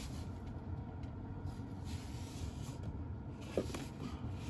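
Steady low cabin hum of a Kia Seltos sitting with its engine running and air conditioning on. A short click about three and a half seconds in is a phone being set down on the centre-console wireless charging pad.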